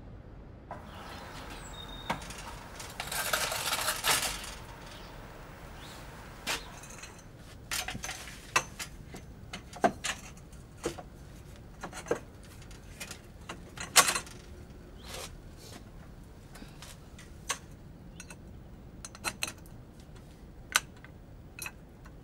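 A bicycle being handled in a wooden storage frame: a louder rattling stretch about three seconds in, then a string of irregular sharp clinks and knocks as a wooden bar is slid through the bike's metal rear carrier rack.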